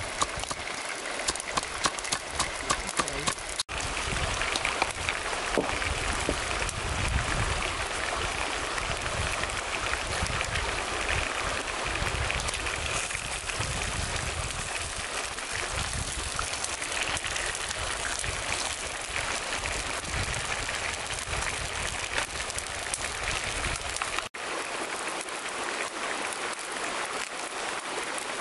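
A wooden pestle pounding salt and chilies in a small bowl, a run of sharp knocks two or three a second for the first few seconds. Then a steady sizzle of chicken pieces frying in hot oil in a pan.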